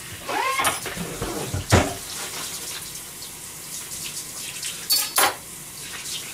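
Saucepans of water simmering on a gas stove, a steady bubbling hiss, with a few sharp clinks of kitchenware: the loudest just under two seconds in and two close together about five seconds in.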